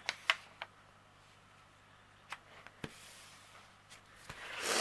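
Hands handling a rolled diamond painting canvas: a few light clicks and taps, then a brief rustle near the end.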